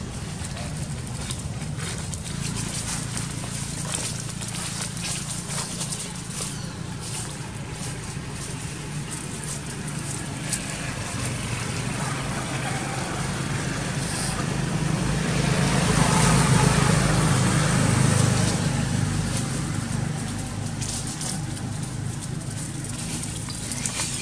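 A motor vehicle's engine running in the background, growing louder for a few seconds past the middle and then fading, with scattered light rustles of dry leaves.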